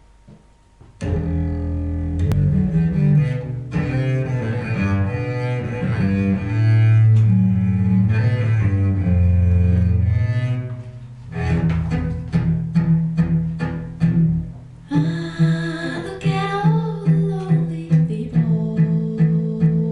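Recorded music played through a 6550 push-pull tube amplifier and loudspeakers: a bowed-string intro with cello and double bass starts about a second in, then turns into an evenly pulsing, rhythmic string figure about halfway through.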